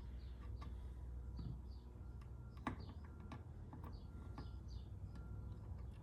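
Scattered small clicks and taps of metal tools on the Xbox One controller's circuit board and joystick solder pins as they are desoldered and loosened, the sharpest about halfway through, over a low steady hum.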